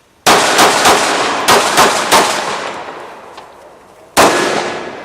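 Pistol shots fired in quick succession: two strings of three shots about a third of a second apart, then a single shot about two seconds later. Each shot has a long echoing tail.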